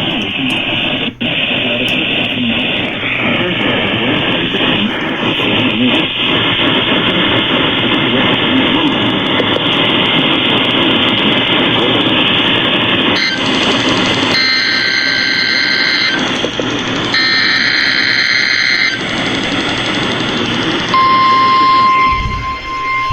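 NOAA Weather Radio weekly-test broadcast received on a scanner radio. First comes a long stretch of hissing static. Then a series of screeching digital data bursts from the SAME alert header, and near the end the steady 1050 Hz warning alarm tone begins.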